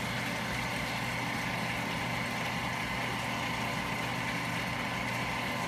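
Steady drone of aquarium pumps and water circulation in fish-holding tanks: a constant low hum and a faint high whine over an even rushing noise.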